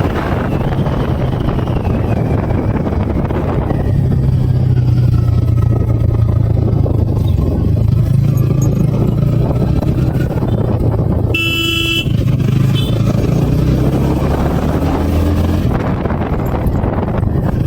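TVS Ronin 225 single-cylinder motorcycle engine running steadily under way, with wind noise on the microphone. About two-thirds of the way through, a vehicle horn sounds once, briefly.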